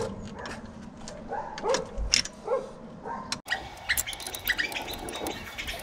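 An animal's short yelps, several in the first three seconds. After a sudden cut, an open-end steel wrench clinks against the ATV tow-hitch bolts as they are tightened.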